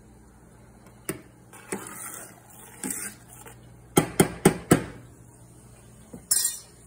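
Cookware clatter at a saucepan of boiling food on a glass-top stove: a few scattered clicks, then five quick sharp knocks about four seconds in, and a short burst of hiss near the end.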